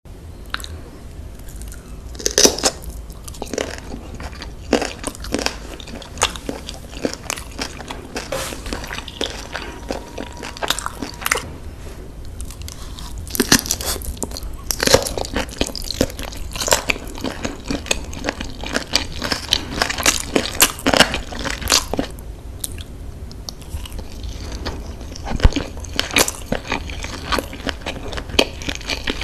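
Close-miked eating: a person bites and chews spicy sauced meat, with irregular sharp crunches and wet mouth sounds.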